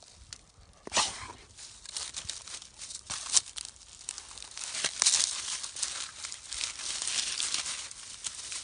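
Dry fallen leaves crackling and rustling as a Jindo dog roots through them with its nose and paws, with a sharp crackle about a second in and steadier, louder crackling from about halfway.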